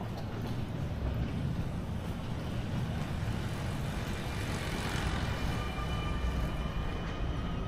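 Steady low rumble of passing vehicle traffic. It swells about halfway through, and a thin high whine joins it over the second half.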